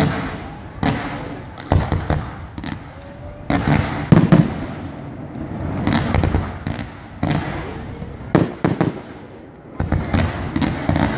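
Fireworks display: aerial shells bursting one after another, a sharp bang or a quick cluster of bangs about every second, the loudest about four seconds in.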